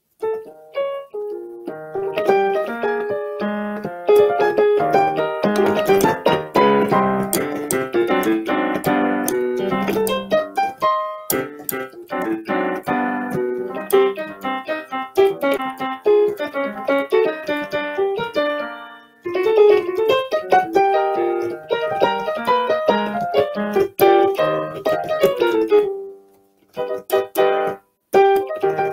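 Digital keyboard played with a piano sound: a flowing two-handed passage of chords and melody, heard over a video-chat connection. The playing breaks off briefly about 11 and 19 seconds in, and pauses for a second or two near the end.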